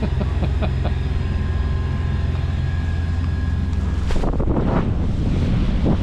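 Sailboat's inboard diesel engine running steadily under way, a low even hum. About four seconds in it gives way abruptly to wind buffeting the microphone and the rush of water along the hull.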